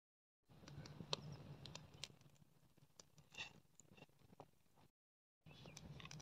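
Faint clicks and light crackles from a spoon stirring milk tea in a pan over a small wood fire, with the burning twigs crackling. The sound cuts out completely twice for about half a second.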